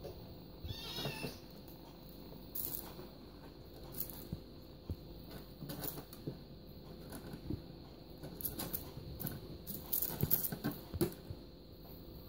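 Russian Blue kitten giving one short, high, wavering meow about a second in, followed by scattered light taps and rustles as it bats at a feather wand toy.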